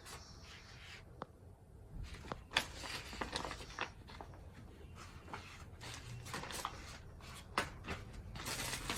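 Rustling and scattered light clicks of clothing being handled, with a longer rustle near the end.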